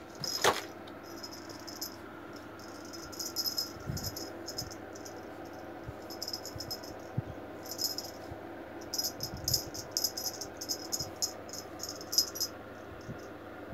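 Light metallic jingling in irregular short bursts, with a sharp click about half a second in.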